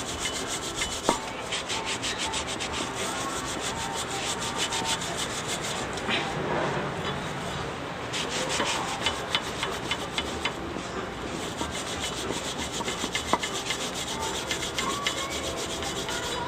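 A brake part being scrubbed clean by hand: rapid, repeated rasping strokes.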